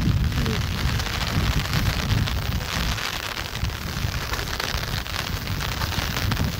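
Rain falling steadily, with wind gusting on the microphone as a low, uneven rumble.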